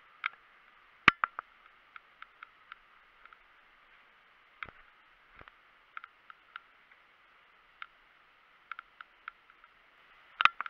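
Scattered sharp clicks and knocks from an airsoft player's gear and movement over a steady hiss, with one loud crack about a second in and a quick cluster of knocks near the end.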